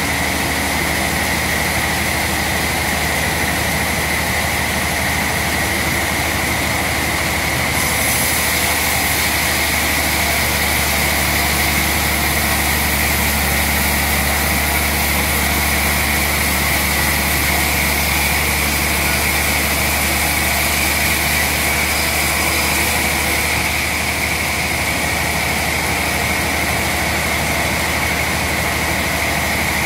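Large log band saw mill running and sawing a log, with a steady high whine over a low motor hum. A brighter hiss joins for about the middle half.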